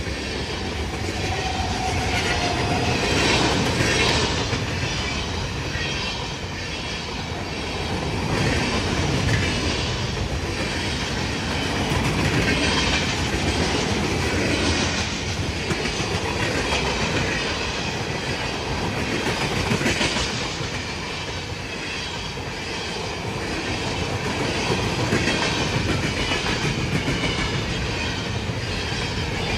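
Freight train's tank cars and covered hoppers rolling past close by, steel wheels running on the rails in a continuous rush of noise that swells and eases as the cars go by.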